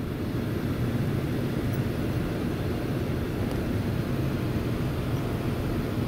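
A steady low background rumble of machinery, such as a fan or a running motor, with a faint hiss above it.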